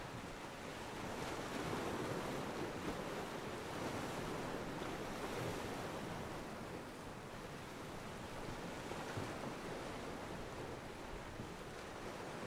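Sea water washing against a pier: a steady wash of small waves, swelling a little a second or so in and then settling.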